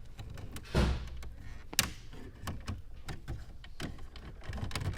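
Clicks and knocks of plastic car interior trim being handled and worked loose, with a dull thump about a second in and a sharp click a second later.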